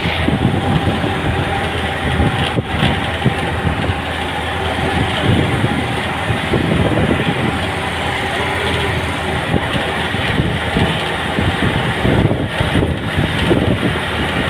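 Steady noise of a road vehicle under way, engine and tyre noise together, with wind flutter on the microphone through an open window.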